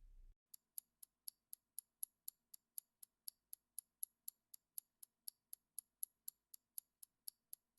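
A faint countdown-timer ticking sound effect: light, high ticks at an even pace of about four a second.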